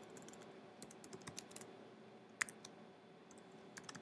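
Faint typing on a computer keyboard: a quick run of key clicks about a second in, a single louder keystroke past the middle, and a couple more near the end.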